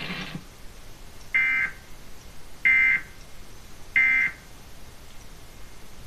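Emergency Alert System end-of-message data bursts played through a television speaker: three short, shrill warbling bursts about 1.3 seconds apart, marking the end of the required monthly test.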